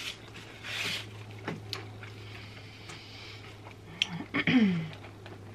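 Close-miked eating sounds: sucking and chewing meat off a fried chicken wing bone, with short slurping hisses, a few wet mouth clicks and a brief falling vocal murmur near the end. A steady low hum runs underneath.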